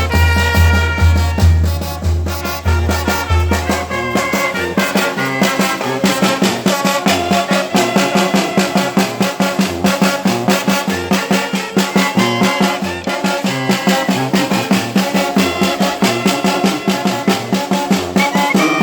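Mexican banda (brass band) playing, with trumpets and trombones over a steady beat; deep bass notes pulse through the first few seconds before a brisk, even rhythm takes over.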